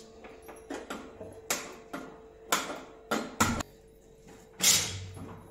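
Steel cookware knocking and clanking on a gas stovetop as a pressure cooker and a steel saucepan are moved and set down: about six sharp knocks, the loudest near the end, over a faint steady hum.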